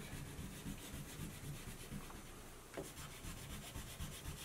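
Wax crayon rubbing back and forth on paper in quick, faint, repeated colouring strokes.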